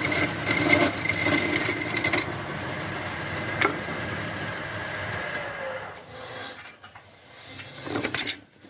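Wood lathe running steadily, with a little scraping, then switched off and winding down about six seconds in. A few short knocks follow near the end.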